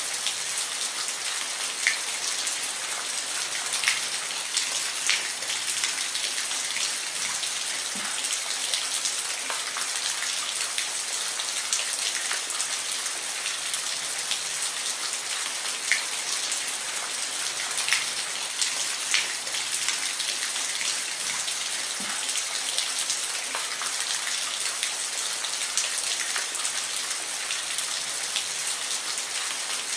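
Steady rain, a dense even hiss with scattered louder individual drops hitting a surface.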